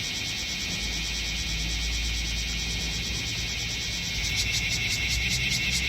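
Bear cicadas (Cryptotympana facialis) singing: a steady, high buzzing chorus that breaks into a fast rhythmic pulsing, about five beats a second, a little past four seconds in.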